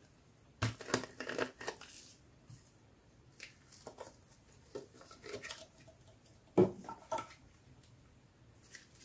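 Thick pink slime being pulled out of its plastic tub by hand. There are three clusters of crackly, squishing handling noises, and the loudest burst comes about six and a half seconds in.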